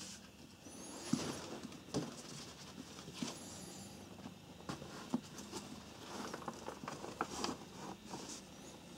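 Scratchy fabric rustling and scattered light clicks and knocks as a navy Diesel fabric business bag is handled and lifted by its handles.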